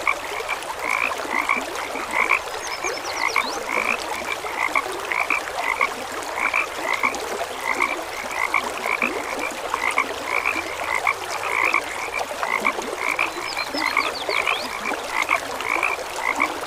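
Frogs croaking in a steady chorus of short, evenly repeated calls, about two to three a second. Twice there is a faint, brief high chirping.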